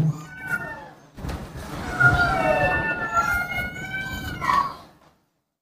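A pet animal's long, drawn-out whining cry of nearly three seconds, wavering a little in pitch and rising at the end. It cuts off abruptly about five seconds in.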